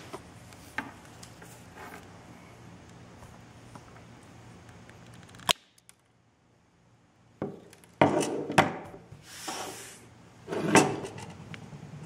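Handheld network crimp-cut-strip tool being worked to cut the wires of a Cat5e cable: a sharp click about halfway, then a cluster of clunks and rattles, the loudest near the end.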